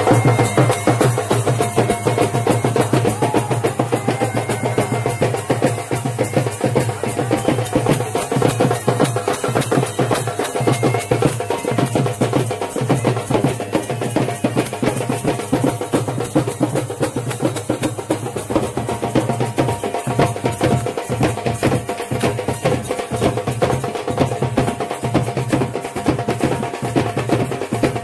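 Drums beaten hard in a fast, dense, unbroken rhythm of sharp strokes, with a steady held tone underneath.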